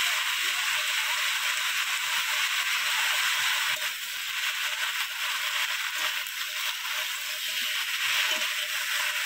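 Oil sizzling steadily in a pan as Malabar spinach curry fries in hilsa fish oil, with a few light knocks of stirring; the sizzling drops off sharply at the end.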